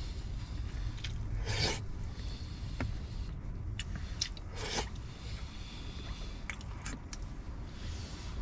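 Metal spoon scraping and clicking against a plastic food container during a meal: a few short scrapes and clicks over a steady low rumble.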